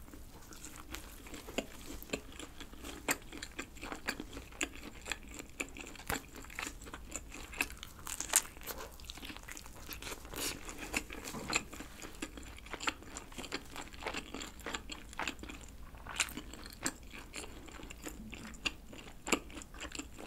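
Close-miked biting and chewing of a thin black-rice-crust pepperoni pizza: many small, irregular crunches and mouth clicks.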